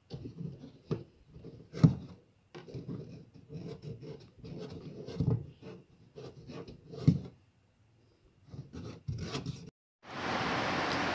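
Irregular rubbing and scraping with a few sharper knocks, then a loud steady rushing noise starts near the end.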